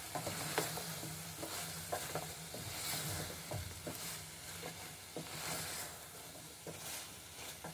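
Beef pieces and chopped tomatoes sizzling in oil while being stirred and turned with a wooden spoon, with scattered light knocks of the spoon against the pot. They are being fried (bhuna) until the tomatoes soften.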